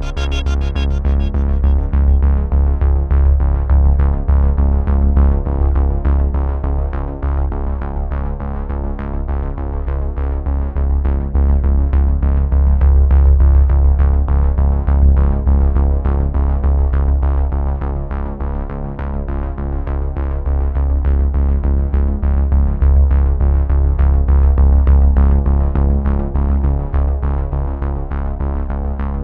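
Background electronic music: synthesizer and keyboard over a steady beat with a heavy bass.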